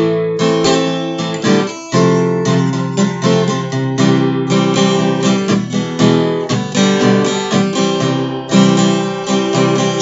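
Acoustic guitar strummed in chords without singing, an instrumental break with brief pauses between phrases.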